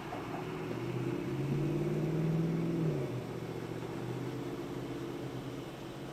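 Prusa Mini+ 3D printer printing: its stepper motors hum in several shifting tones as the print head moves, over a steady fan whir. The motor tones are loudest from about a second and a half to three seconds in.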